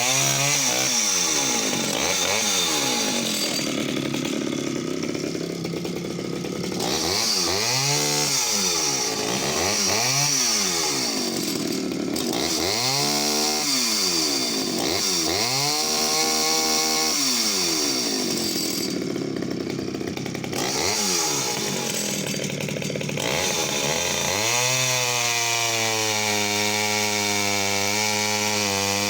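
Pioneer P25 51cc two-stroke chainsaw running and revved up and down repeatedly, its pitch rising and falling many times, then holding a steady note for the last few seconds.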